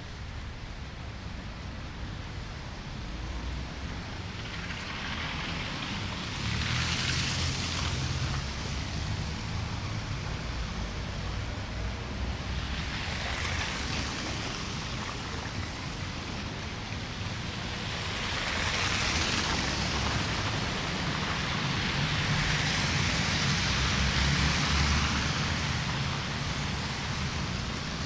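Snowbound city street ambience: a steady wash of noise with a low rumble, swelling four times as cars pass by on the wet, slushy road.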